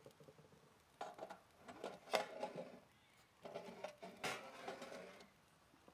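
Metal clinks, scrapes and rattles as a lit burner tray is handled and slid into the sheet-metal firebox of an antique Märklin toy hot air engine. The clatter comes in three short bouts, the sharpest clicks about two seconds and four seconds in.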